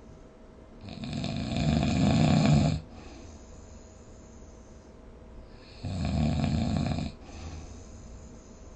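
A person snoring: two loud snores, the first starting about a second in and growing louder over about two seconds, the second shorter, a few seconds later.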